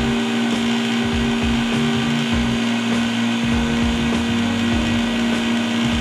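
Electric lab vacuum pump running steadily with a constant hum. It is pulling vapor off a flask of water so that the water boils at room temperature.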